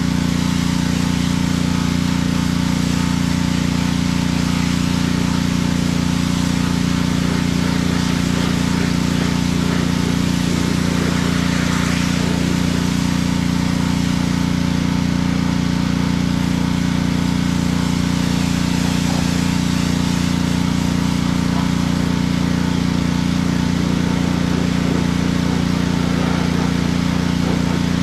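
Pressure washer's small engine running steadily, with a continuous drone, while the wand sprays water.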